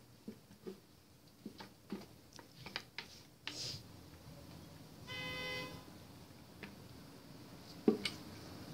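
Scattered light clicks and taps of soap-making utensils against plastic and glass containers, a single short horn-like tone about five seconds in, and a sharp knock near the end.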